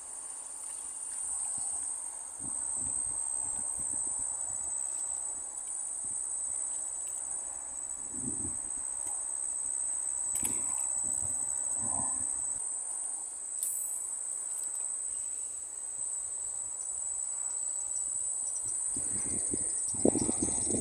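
Insects chirring in one steady, high-pitched drone, with a few soft knocks and rustles from handling the fishing rod and lure.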